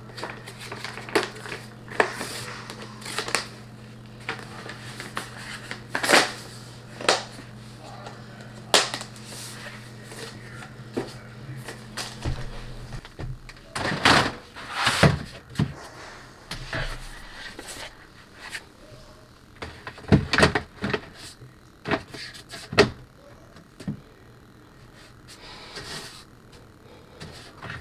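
Irregular knocks, clicks and clatter of things being handled, moved and set down while a closet is sorted, busiest in the middle; a steady low hum runs under the first half and stops about twelve seconds in.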